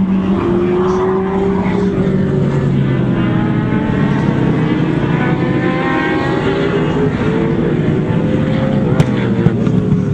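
Racing car engines running together, their overlapping notes rising and falling as the cars accelerate and lift off, with a sharp click about nine seconds in.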